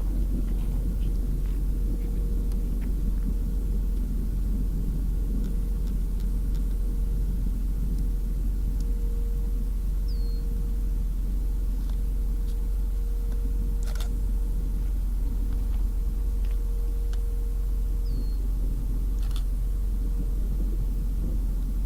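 Steady low rumble of a car on the road, with a faint steady whine that stops near the end. A short high falling chirp is heard twice.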